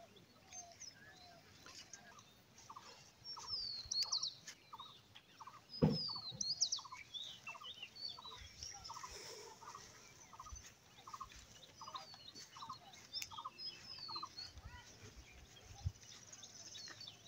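Birds chirping and calling among the trees, one of them repeating a short, low call about one and a half times a second for several seconds. A single thump comes about six seconds in.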